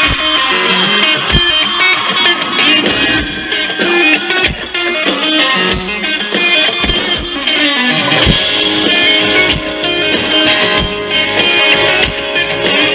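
Live band playing an instrumental passage at full volume: electric guitars over a steady drum beat.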